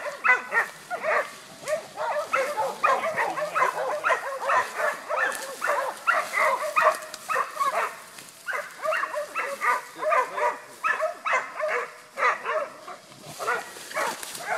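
Dog barking over and over, about three barks a second without a break.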